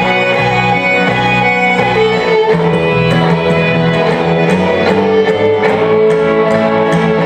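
Live country string band playing: two fiddles bowing a lively tune over an upright bass and electric guitar keeping a steady beat.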